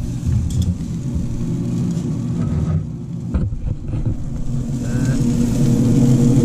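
A Traeger pellet grill's lid lifted open, with a few short knocks and clatter about half a second in and around three seconds in, over a steady low rumble that grows louder near the end.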